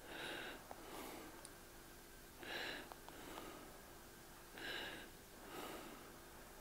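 A man breathing slowly and audibly through his nose, close to the microphone: soft puffs of breath every second or two, the in-breaths a little sharper than the out-breaths.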